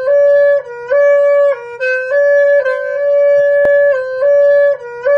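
A horn-like wind instrument played in short phrases: clear held notes of about half a second each, stepping between two close pitches, with brief breaks between notes and a faint low drone beneath.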